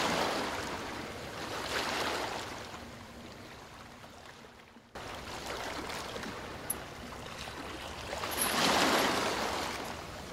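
Rushing noise that swells and fades like waves washing in, three times, with an abrupt cut about five seconds in.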